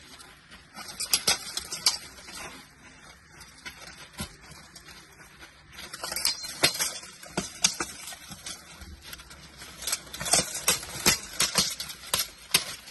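Sword blows landing on shields and plate armour in armoured combat sparring: flurries of sharp knocks and clanks about a second in, around six seconds in, and again from about ten seconds in.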